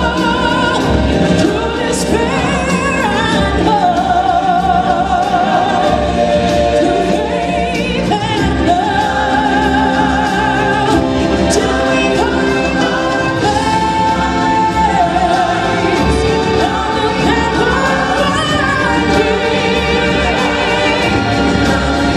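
A live stage musical number: a choir of voices singing with accompaniment, with long held notes sung with a strong vibrato.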